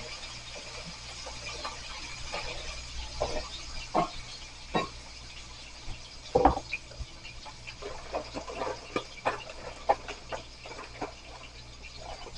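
Scattered light knocks and clicks of kitchen items being handled. The loudest knock, about six and a half seconds in, comes as a plastic cutting board is set down on a towel-covered counter.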